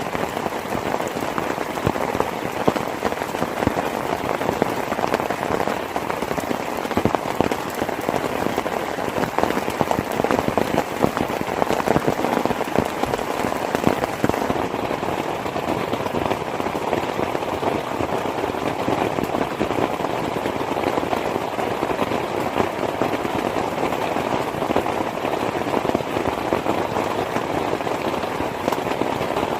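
Heavy rain falling steadily: a dense, even spatter of countless drop hits, with no thunder.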